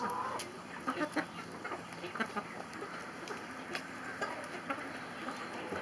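A flock of backyard chickens clucking as they peck at scattered corn, with a few short clicks mixed in.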